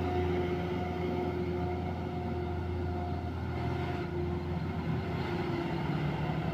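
Diesel engine of a heavily loaded Mitsubishi Colt Diesel truck pulling up a steep grade, a steady drone.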